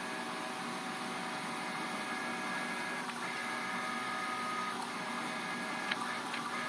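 DC servo motors of a homemade CNC router, run by GeckoDrive G320X drives, giving a steady, quiet whine of several pitches as the gantry jogs along the X axis. The whine breaks off briefly about three seconds in, and a few faint ticks come near the end.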